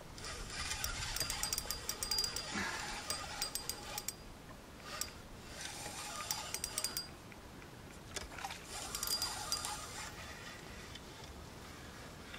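Spinning reel being cranked in three spells, its gears clicking and whirring, as a hooked catfish is reeled in.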